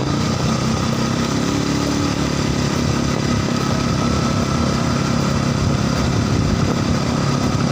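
A vehicle engine running steadily under light load, with an even hum that holds its pitch.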